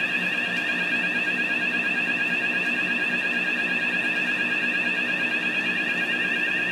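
Electronic fire alarm sounder going off continuously: a shrill high-pitched multi-tone signal with a rapid flutter, over a low steady hum.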